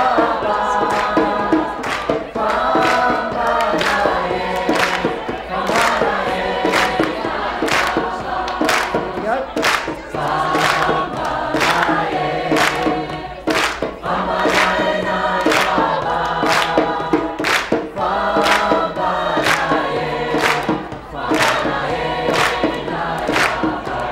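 A large group of men and women singing together as an untrained choir, clapping their hands in time on the beat, about one and a half claps a second.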